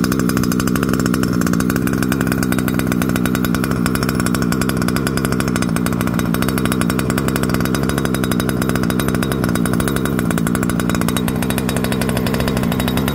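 Small two-stroke gasoline engine of a 1/5-scale HSP RC truck idling steadily.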